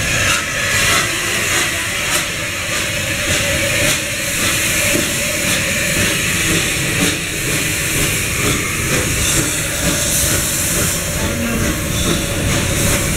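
Bulleid West Country class steam locomotive 34092 'City of Wells' hissing steam as it rolls slowly past at close range. There is a steady hiss over a low rumble.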